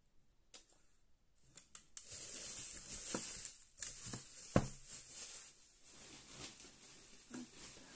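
Thin plastic bag crinkling and rustling as it is pulled off a small plastic bin, the noise starting about two seconds in and easing off after about five seconds, with a sharp knock about halfway through.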